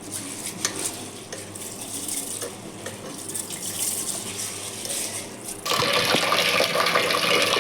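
Rice and green gram dal being washed by hand in a vessel of water: soft sloshing with small clicks of grains and vessel. About five and a half seconds in, water starts pouring into the vessel, a louder steady splashing.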